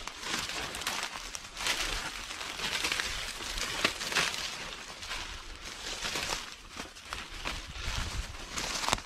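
Footsteps crunching and rustling through dry fallen leaves on a forest floor, in an irregular walking rhythm.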